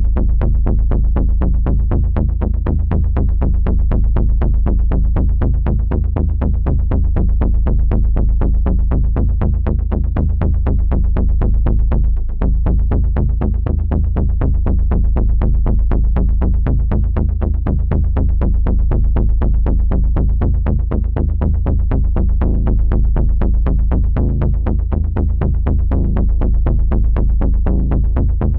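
Designed helicopter-rotor suspense sound effect: a rapid, steady low chopping pulse, about seven beats a second, heavy in the bass, with a mechanical, drum-machine-like regularity.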